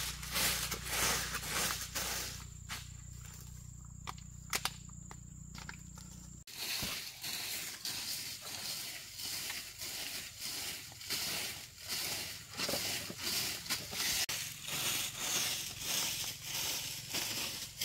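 Bundled-twig broom sweeping a dirt floor: rhythmic swishing strokes, about two a second, that stop for a few seconds and then start up again.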